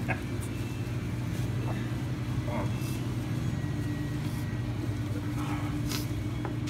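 Steady low machine hum, like a restaurant's ventilation or cooler running, with a few faint short noises and a brief hiss near the end.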